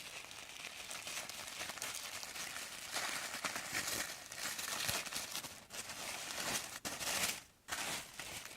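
Packaging crinkling and rustling as it is handled, a steady run of crinkles with a few short pauses in the second half.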